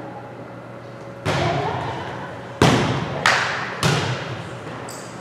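A volleyball struck four times in a rally: one hit about a second in, then three in quick succession, each sharp slap echoing in the gymnasium.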